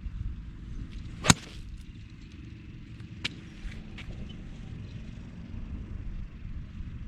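A golf iron striking a ball with one loud, sharp crack, followed about two seconds later by a fainter strike, over a steady low rumble.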